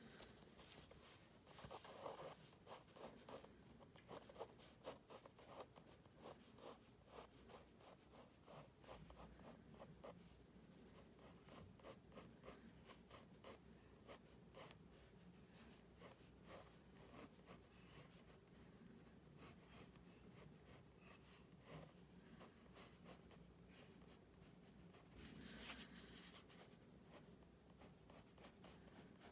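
Faint scratching of a pen-shaped sketching tool's tip on paper, drawn in many quick short strokes, with a louder stretch of longer strokes near the end.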